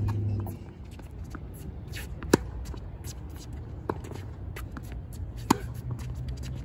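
Tennis ball struck by a racket during a baseline rally: two loud, sharp pops about three seconds apart, with fainter hits and bounces from the far end of the court in between. Shoes scuff and shuffle on the hard court.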